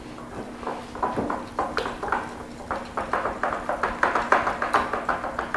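Wire whisk beating thick spaetzle batter in a glass bowl: quick, rhythmic wet strokes with light taps of the wires on the glass, starting about a second in and growing louder.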